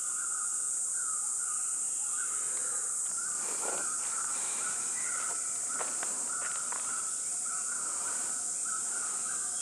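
Outdoor insect chorus: a steady high-pitched drone with a repeating, pulsing chirp running under it.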